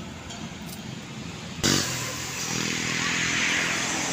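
Motor vehicle engine with road noise, starting abruptly about a second and a half in and swelling louder toward the end, as of a vehicle passing close by.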